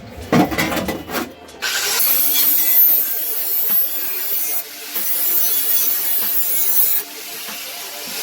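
A few knocks, then from about two seconds in a DeWalt angle grinder grinding the edges of a sheet-steel floor-pan patch panel, a loud steady hiss that eases off briefly twice.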